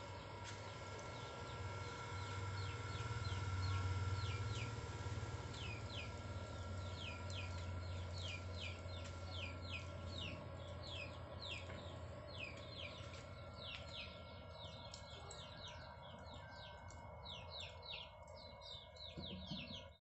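Steady low hum with a few faint steady tones, from the charcoal stove's small electric blower, with many short, high, falling chirps of birds coming thicker in the second half.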